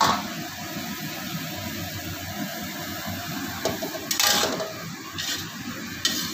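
Water spinach stir-frying in a wok, with a metal spatula scraping and clinking against the pan a few times over a steady background of frying. The loudest scrape comes about four seconds in.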